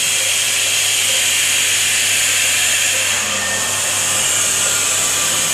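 Steady rushing hiss of air over a low, even hum, from the CNC's vacuum hold-down system drawing air through the pods.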